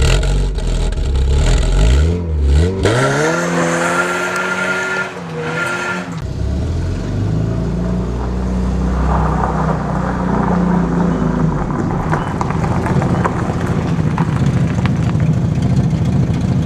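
Volkswagen Golf GTI Mk2's four-cylinder engine accelerating hard, rising in pitch, dropping at a gear change about three seconds in and rising again, then running on steadily at a lower pitch.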